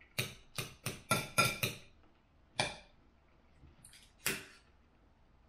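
Knife and fork clinking and scraping against a dinner plate while cutting food: a quick run of about half a dozen clinks in the first two seconds, then two single clinks, one about halfway and one a little later.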